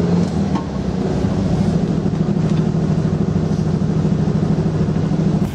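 Air-cooled flat-four engine of a Volkswagen T1 split-window bus running steadily, an even low drone.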